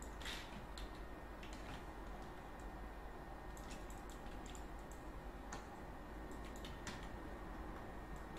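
Faint computer mouse and keyboard clicks: about a dozen short, irregularly spaced clicks over a steady low background hum.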